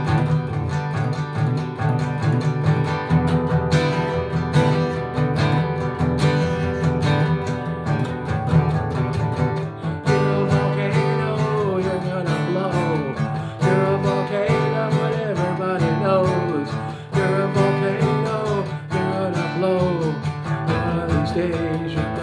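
Instrumental break of a country-style song: strummed acoustic guitar, with a lead melody of sliding, bending notes coming in about halfway through.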